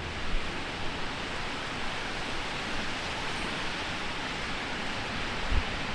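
Heavy rain falling steadily, an even hiss, with a couple of brief low thumps.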